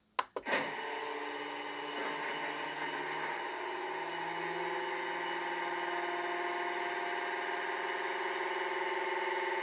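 Sound-decoder recording of a Class 68 diesel locomotive's engine, played through the small speaker in a model locomotive: a few sharp clicks, then the engine starts and runs steadily at idle, growing slightly louder.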